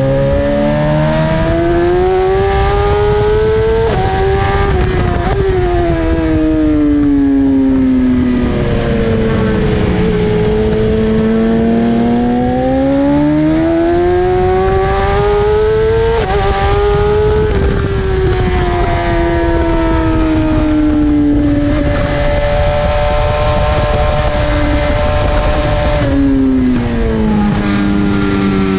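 BMW S1000RR's inline-four engine at speed on a race track, pitch climbing as it accelerates and falling off as it slows, with a steadier stretch in the middle. Heavy wind rush runs underneath.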